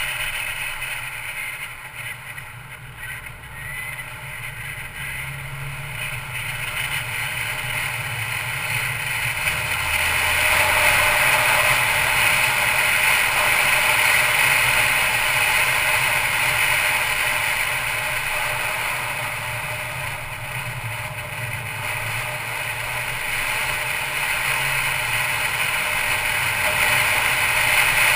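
Steady driving noise of a Mercedes-Benz C250 Coupe on the move: engine hum under road and wind noise, heard from on board the car. It grows louder over the first ten seconds or so, dips briefly later and climbs again near the end.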